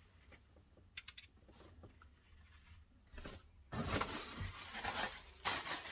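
Faint clicks, then from about two-thirds of the way in, the rustling and crinkling of packaging being handled as parts are lifted out of a box.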